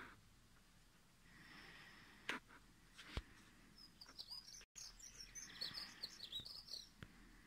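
Common starling singing faintly: a quick jumble of high chirps and whistles lasting about three seconds, starting about four seconds in. Two sharp knocks, about a second apart, come before it.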